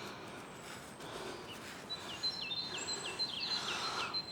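A songbird singing: from about halfway in, a quick run of about eight short falling notes over a thin high whistle. Steady outdoor background noise runs underneath.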